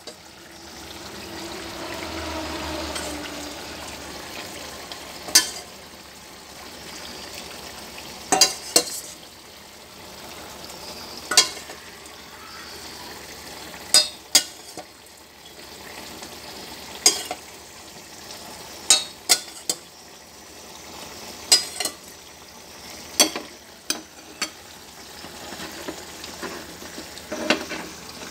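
Pork braising in a pan on the stove, sizzling steadily, with sharp clinks of a utensil every few seconds, some in pairs, as it is stirred.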